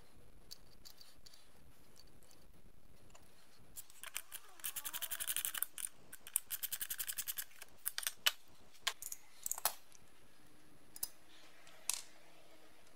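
Small metal nuts and washers clicking against the studs and cast metal base of a money checker as they are fitted and threaded on by hand: two runs of quick clicks, then a few single clicks.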